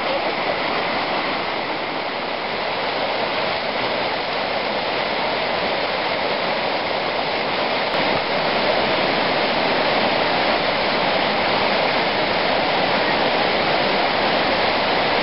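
A mountain river cascading over rock ledges and boulders: a steady, even rush of water, slightly louder from about 8 seconds in.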